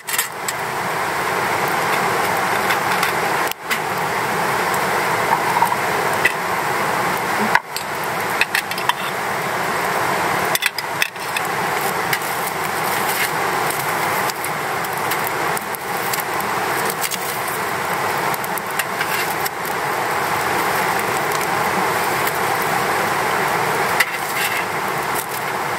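Wood fire burning in a box-shaped fire pit, a steady crackling hiss that dips briefly a few times.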